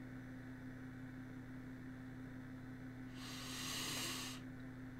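A man's breath blown out through pursed lips, a soft hiss lasting about a second, starting about three seconds in, over a steady low electrical hum.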